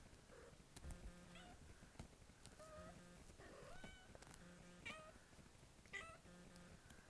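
Kittens giving about five short, high mews roughly a second apart, each bending up and then down in pitch, while they play.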